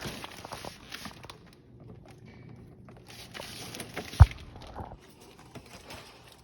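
Handling noises during a garbage disposal installation: two stretches of rustling and scraping with small clicks, and one sharp knock about four seconds in.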